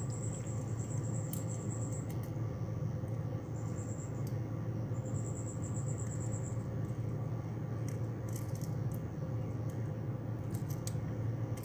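Small metallic clicks and jingles of a split ring and treble hook being worked onto a fishing lure with split-ring pliers, with a few sharper clicks in the second half, over a steady low hum.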